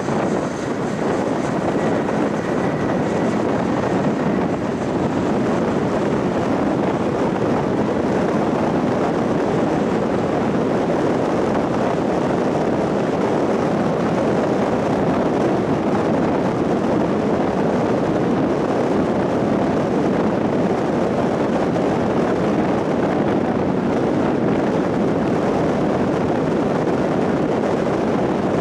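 Steady road and wind noise of a car cruising at about 60 km/h, a constant rushing hiss.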